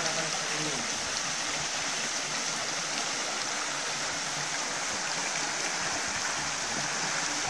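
Flowing water, a steady rushing noise with no breaks.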